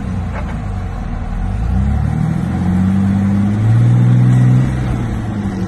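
Rock-crawling Jeep's engine revving under load as it climbs a steep rock ledge: the revs rise about two seconds in, are loudest for about a second near the four-second mark, then ease off.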